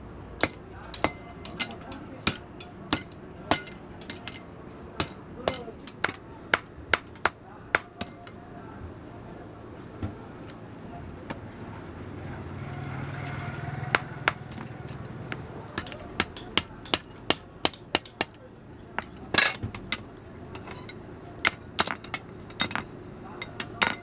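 Blacksmith's hand hammer striking a hot iron ring on an anvil, about two blows a second, each blow with a high metallic ring. The blows come in two runs separated by a pause of several seconds in the middle.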